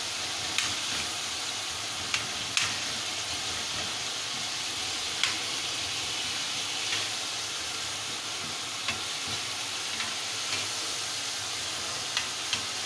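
Tomato-and-onion masala sizzling steadily in a frying pan as a flat metal spatula stirs it, with a few sharp scrapes and taps of the spatula against the pan.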